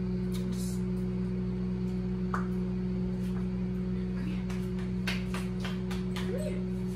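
Microwave oven running with a steady low hum, with a few faint light clicks and taps over it.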